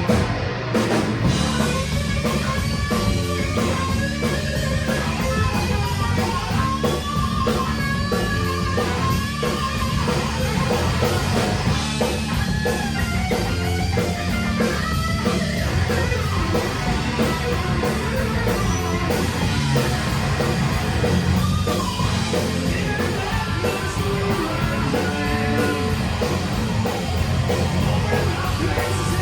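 Rock band playing: electric guitar over a drum kit.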